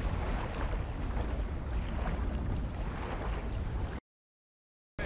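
Wind buffeting an outdoor microphone as a steady low rumble, over choppy lake water lapping against the wooden rowing shells and dock. Near the end the sound cuts off to dead silence for about a second.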